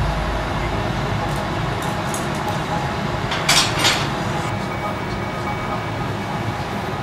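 Steady roar of a glassblowing furnace filling the workshop, with two short sharp sounds close together about halfway through.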